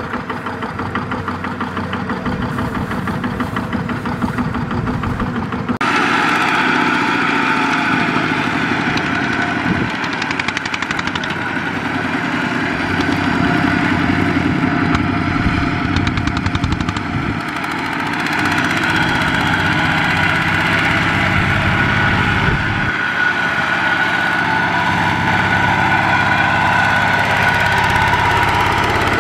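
Kubota RT120 walking tractor's single-cylinder diesel engine running steadily while it pulls a trailer loaded with rice sacks. The engine grows louder and brighter about six seconds in.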